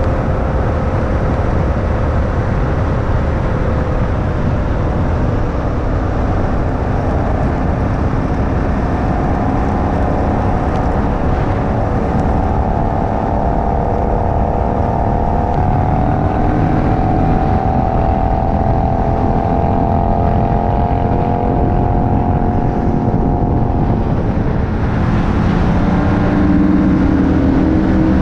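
Yamaha MT-07's 689 cc parallel-twin engine pulling at a steady highway cruise, mixed with heavy wind rush on the microphone. The engine note drifts gently, then changes to a lower, stronger note near the end.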